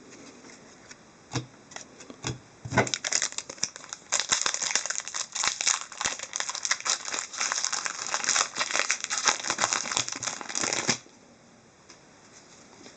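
Crinkling of a hockey card pack's wrapper as it is handled and opened: a few scattered crackles at first, then about seven seconds of dense crinkling that stops abruptly.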